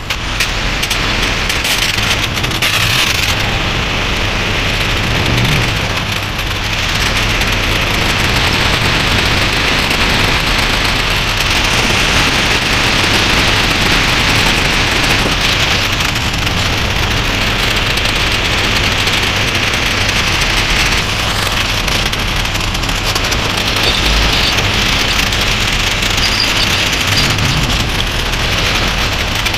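Pressure washer jet carrying black sand blasting an old two-stroke engine: a loud, steady spraying hiss and spatter on metal and wet concrete, with the washer's steady low motor hum underneath.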